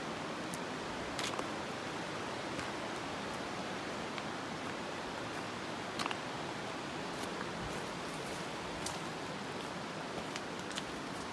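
Shallow creek water rushing steadily over rock riffles, an even hiss, with a few faint clicks.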